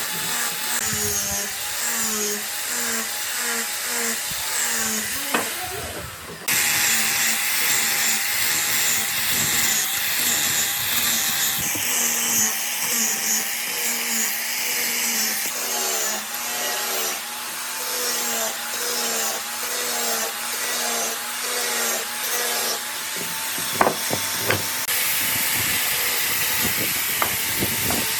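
Wood being worked by hand with repeated back-and-forth strokes, sawing or rubbing at about one to two strokes a second, with a few sharp knocks.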